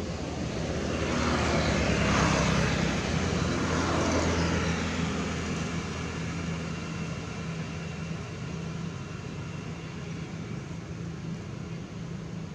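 Engine of a passing motor vehicle: a steady drone that swells about a second in, is loudest for a few seconds, then fades back to a lower steady hum.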